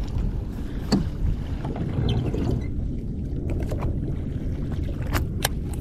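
Steady wind and water noise on a sea kayak, with a few sharp clicks about a second in and twice near the end.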